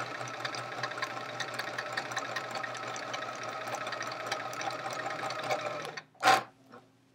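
Sewing machine stitching a seam at a steady speed with an even, rapid stitch rhythm, stopping abruptly about six seconds in. A short sharp noise follows just after.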